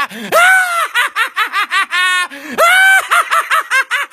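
A man's cackling laugh: rapid ha-ha bursts, twice rising into a long, high shriek.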